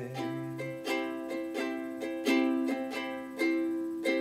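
Ukulele strummed in chords in a steady rhythm, about three strums a second.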